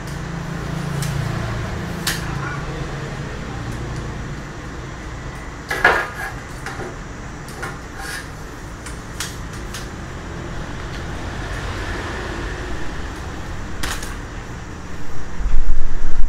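Scattered clicks and knocks of a Weifeng WT-3520 tripod being handled and adjusted, over a steady low background hum. Near the end a loud rumble of handling noise as the recording phone is picked up and moved.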